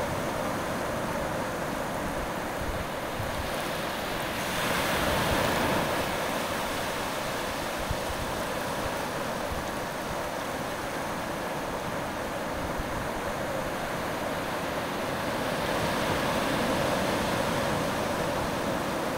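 Shallow surf washing over wet sand in a steady rush, swelling louder about five seconds in and again around sixteen seconds in.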